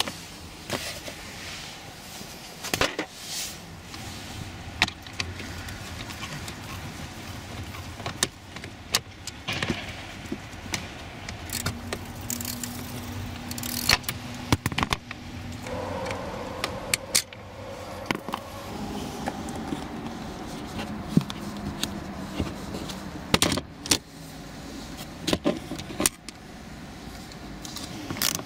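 Plastic interior trim panels of a 2019 Toyota RAV4 being handled and unclipped under the dashboard: scattered clicks, knocks and rattles.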